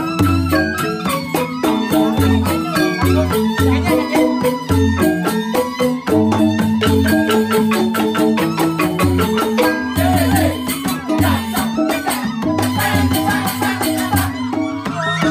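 Balinese gamelan music for joged dancing: pitched xylophone-type keys struck rapidly with mallets in interlocking patterns, over regular low drum beats.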